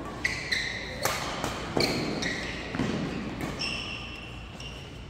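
A fast badminton doubles rally: rackets strike the shuttlecock several times with sharp cracks, about half a second apart in places. Players' shoes give short high squeaks on the court mat between the hits.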